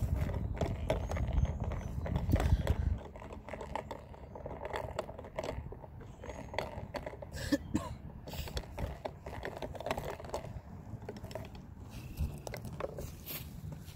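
A thin wooden stick stirring soapy liquid in a glass jar, with repeated small scrapes and clicks of wood against glass. A low rumble fills the first three seconds.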